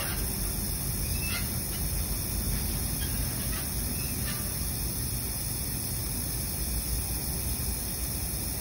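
SABALON 420 mL aerosol hair spray can spraying without a break, its nozzle held down: a steady hiss.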